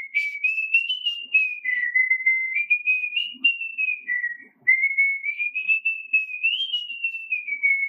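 A man whistling a tune through pursed lips without using his fingers, the kind of whistle he calls a love bird whistle: a single clear note stepping up and down from note to note, with a short break about halfway through.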